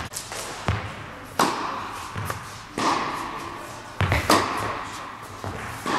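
Tennis balls struck with rackets and bouncing on an indoor court during a rally. The sharp hits come about every second and a half, with softer knocks between them, and each rings out in the echo of a large hall.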